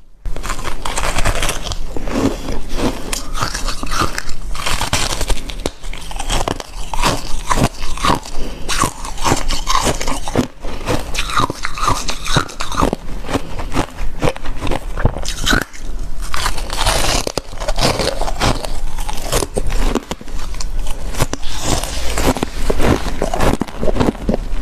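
Close-miked biting and chewing of crunchy freezer ice: a dense, irregular run of crisp crunches and crackles.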